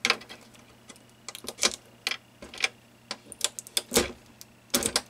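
Irregular small clicks, taps and light rattles of a screwdriver and hands handling wires and parts on a flat-screen TV's sheet-metal back panel, loudest about four seconds in.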